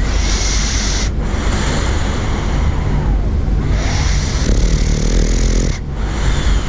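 Bulldog snoring loudly: long, noisy breaths broken by short pauses about a second in and near the end, with a rattling flutter just before the second pause.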